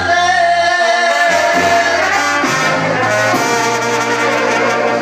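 Live banda-style brass band playing: trombones and trumpets over a tuba bass line, with sustained held notes.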